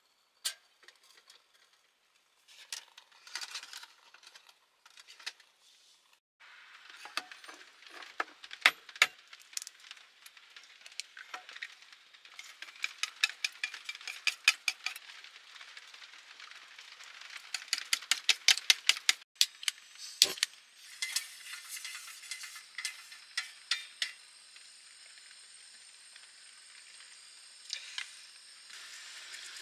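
Wooden chopsticks beating eggs in a metal cup: rapid clicking and tapping against the metal, coming in quick runs, with knocks of cookware being handled before it. Near the end, food starts sizzling in a pot.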